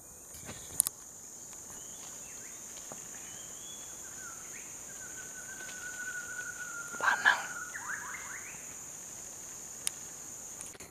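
Steady high-pitched drone of forest insects, with a long thin whistled note in the middle and a short spoken word over its end. Two sharp clicks, one near the start and one near the end.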